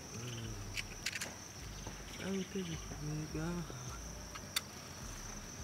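A steady high insect trill runs throughout. A low voice speaks briefly at the start and again from about two seconds in, and a few short sharp clicks sound.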